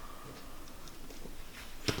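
Quiet background with a single sharp click near the end.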